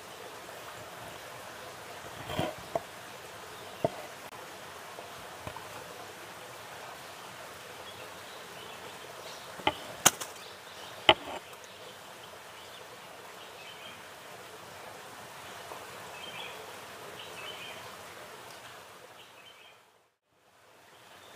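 A few sharp knocks of a large curved knife striking a wooden cutting board as lemons are sliced, the loudest pair about halfway through, over a steady outdoor background hiss. Everything fades out near the end.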